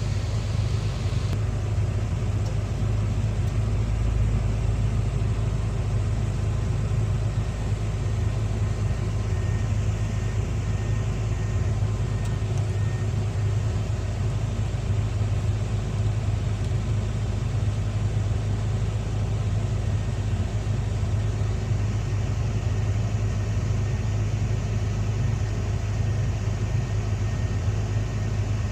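Excavator's diesel engine running at a steady speed, a constant low hum that neither revs up nor dies down.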